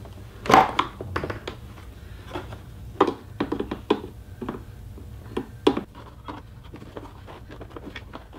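Plastic retaining clips on the center section of a 2016 Mustang GT's stock grille being pried loose with a screwdriver: an irregular string of clicks, snaps and scrapes of hard plastic, the sharpest about half a second in, at about three seconds and near six seconds, over a steady low hum.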